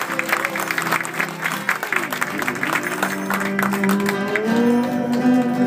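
Applause over music. The clapping dies away after about two seconds, and the music carries on with held notes.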